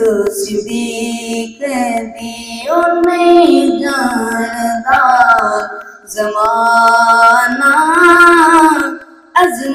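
A boy's unbroken voice singing a Punjabi devotional song (naat) solo into a microphone, with no instruments, in long held and ornamented phrases broken by short breaths.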